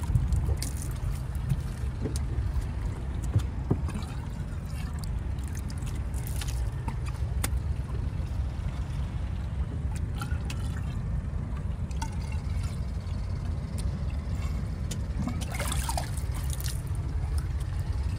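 Water trickling and sloshing in a boat's live-well tank, over a steady low rumble, with occasional short clicks and knocks.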